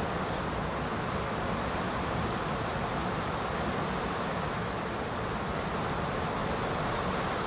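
Steady rushing background noise, even throughout, with no distinct events.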